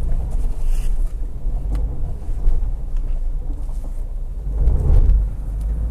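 2016 Subaru Forester's 2.5 L boxer four-cylinder working under load as the car crawls up a steep gravel slope, a low rumble with faint gravel crackles that swells about five seconds in. The brake-based all-wheel-drive traction system is braking a spinning wheel so that the other side can put down power.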